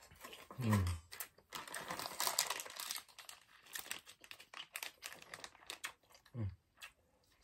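Crinkling and crackling of a plastic snack wrapper being handled and opened. Two brief low sounds sliding down in pitch come about a second in and near the end.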